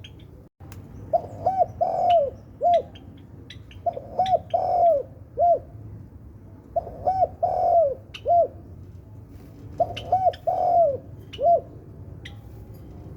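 Spotted dove cooing: four phrases about three seconds apart, each two short coos, a longer drawn-out coo, then one short coo. Faint sharp ticks sound between the phrases.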